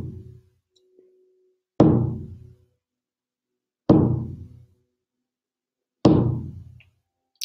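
Shamanic frame drum struck slowly with a beater, one deep beat about every two seconds, each ringing out and fading before the next.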